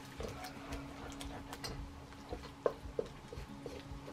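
Wooden spatula stirring pork in sauce in a steel wok: soft scrapes and a scatter of light taps on the metal, two of them sharper near the end, over a faint steady hum.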